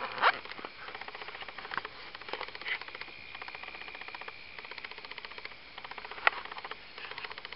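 Several short, sharp calls, which the recordist takes for a male spotted crake calling, over a steady high-pitched whine with a rapid pulse. The loudest call comes right at the start and another strong one about six seconds in.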